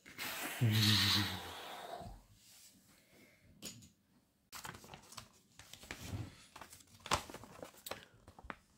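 A person making an airplane-engine noise with the mouth: a buzzing hiss lasting about a second and a half near the start. Later come scattered paper rustles and crinkles as a folded instruction sheet is opened.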